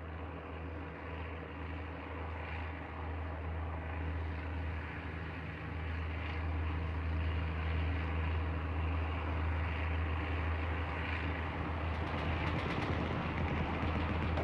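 Low, steady drone of bomber aircraft engines, growing slowly louder.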